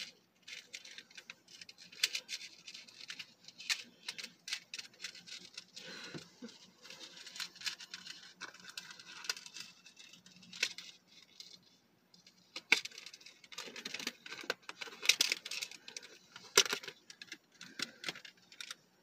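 A small keychain with a metal key and chain is being worked loose by hand, giving light clinks, rattles and crinkles in scattered clusters of clicks, with a short lull around the middle.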